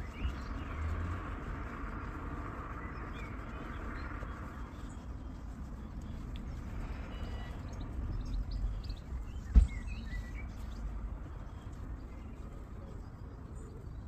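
Small birds chirping in the background over a low, steady rumble, with a soft hiss during the first few seconds and one sharp knock a little past the middle.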